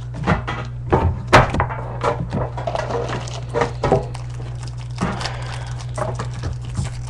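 Yu-Gi-Oh! booster pack's foil wrapper being handled and torn open, with irregular crinkles and rustles and a few louder crackles, over a steady low hum.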